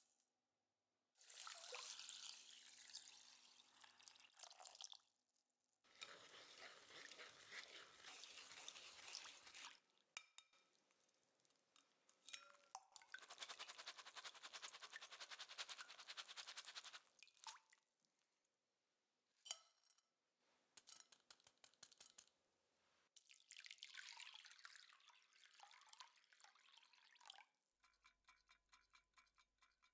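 Dry split yellow lentils poured into a metal mesh sieve, then rinsed: water running and dripping through the sieve into a glass bowl, in several separate spells with quiet gaps between them.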